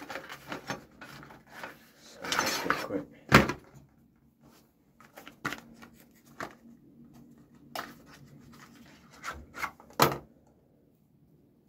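Handling noises of objects being picked up and set down on a wooden surface: scattered clicks and knocks with a short rubbing scrape. Sharp knocks stand out about three and a half seconds in and again about ten seconds in.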